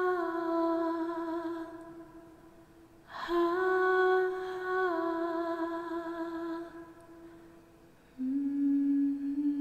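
A woman humming slow, long held notes in separate phrases. A held note fades out within the first two seconds, a new phrase starts about three seconds in and steps down a little in pitch, and a lower note begins near the end.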